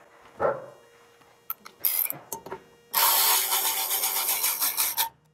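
Cordless electric ratchet driving a Torx bolt into the helix of a snowmobile secondary clutch: a motor whir with a fine fast pulse that starts about three seconds in, runs about two seconds and stops abruptly as the bolt seats. A few light metal clinks of tool handling come before it.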